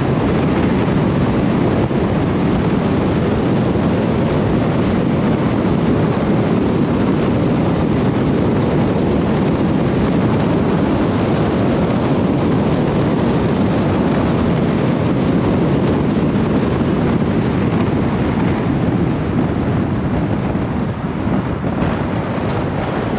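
Steady rush of wind and road noise from a car driving along at speed, with wind buffeting the microphone.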